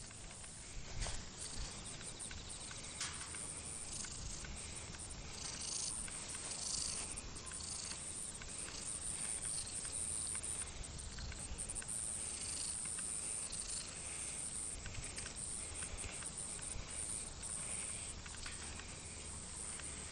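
Outdoor ambience of insects chirping steadily in a high, continuous band, with scattered soft clicks and rustles over it.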